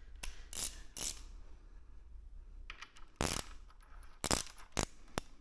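Hand ratchet wrench clicking in short, irregular strokes while a frame slider mounting bolt is tightened by hand.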